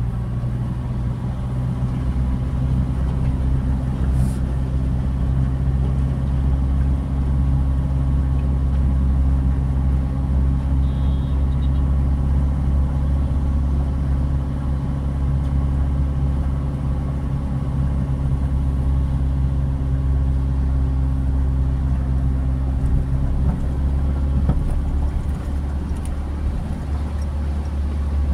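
A car's engine running steadily, heard from inside the cabin as a continuous low drone while the car drives.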